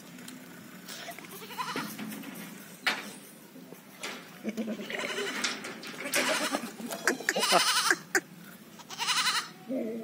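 Goats bleating: a series of quavering bleats, about four of them in the second half, the loudest about eight seconds in.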